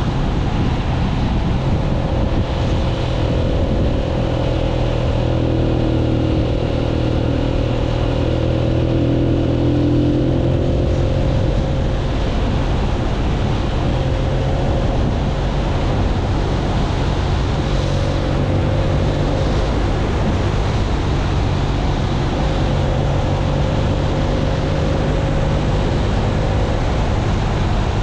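Keeway 125 cc motorcycle engine running steadily while riding at cruising speed, with wind noise rushing over the microphone.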